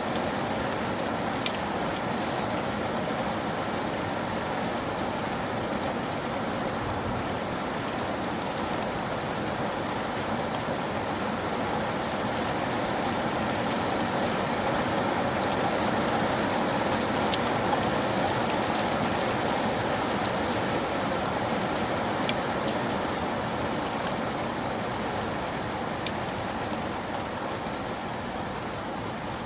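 Steady rain falling, with occasional sharper drop ticks on a surface. It swells slightly about halfway through and eases a little near the end.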